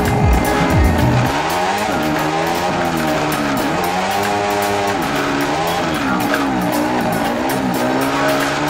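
Kawasaki Z250SL's single-cylinder engine running while riding in slow traffic, its pitch rising and falling about once a second as the throttle is opened and closed. Wind buffets the microphone for about the first second.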